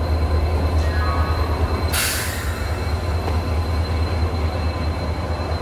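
Indian Railways diesel locomotive engine running beside the platform, a deep steady drone, with one short hiss of released air about two seconds in.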